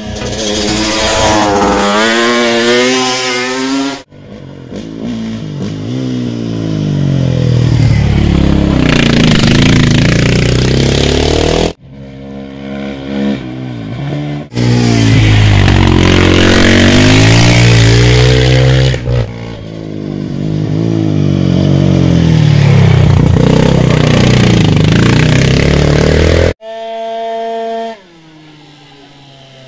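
Racing quad bike engines revving hard up a hill and passing close by, in several short clips joined by abrupt cuts. The pitch climbs through each gear and drops at the shifts. Near the end a quieter engine holds a steadier note.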